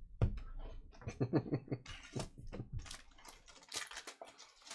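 Trading cards and their plastic holders being handled: a run of crisp clicks, scratches and rustles, densest in the second half, with a low voice murmuring through the first half.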